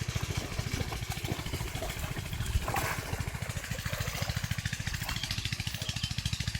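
A small engine running steadily with a fast, even low chugging.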